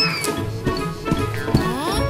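Bouncy background music with a steady beat and swooping, sliding notes.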